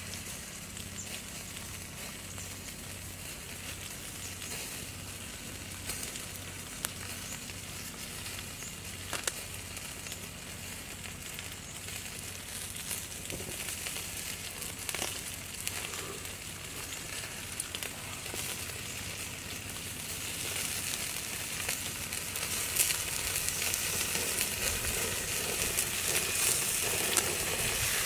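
Fish sizzling as they grill on a hot stone slab over a wood fire, with occasional sharp crackles and pops. The sizzle grows louder in the last several seconds.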